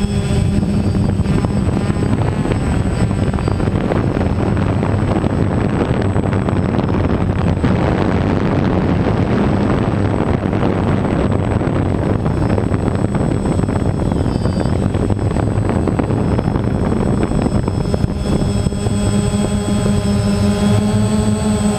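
Multirotor drone's propellers and motors whirring steadily. Their pitched hum is clearest near the start and end, and is mostly buried under a rushing noise through the middle.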